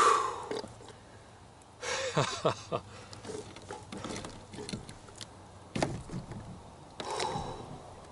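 Scattered knocks and scrapes as a large flathead catfish and fishing gear are handled in a kayak, the loudest knock about six seconds in, with a few short vocal sounds from the angler.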